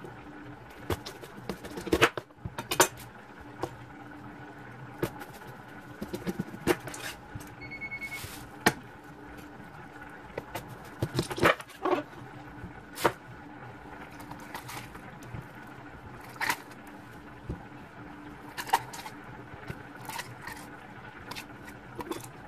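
Kitchen knife cutting through green bell peppers on a countertop: irregular sharp knocks of the blade hitting the counter, with scraping as the peppers are handled, over a steady background hum. A short beep sounds once about eight seconds in.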